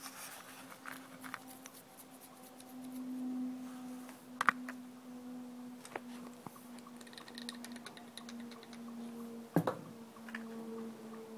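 Small metallic clicks and taps from a replica Remington .44 black powder revolver being loaded by hand, with a sharp double click about four and a half seconds in and another sharp click near the end, over a steady hum.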